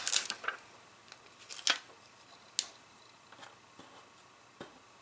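Clear plastic stamp packaging crinkling as a sheet of clear stamps is handled. There is a dense crinkle at the start, then a few short, sharp rustles and ticks, the clearest about a second and a half and two and a half seconds in.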